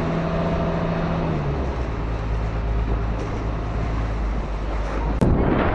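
Passenger boat's engine running steadily under a rush of wind and water. A sharp click and an abrupt change in the sound come near the end.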